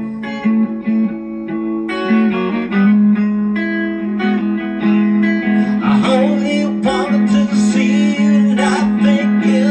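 Harley Benton Madcat Telecaster-style electric guitar played through an amp: sustained, ringing chords with a strong steady low note, then strummed chord strokes about once a second through the second half.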